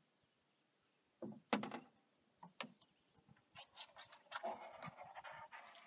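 A small fish being unhooked by hand in a canoe: scattered knocks and clicks, the loudest a pair about a second and a half in, then a quicker run of small clicks and rustles over the last two seconds.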